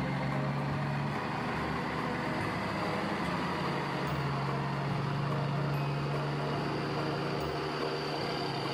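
Dubbed truck engine sound effect, running steadily.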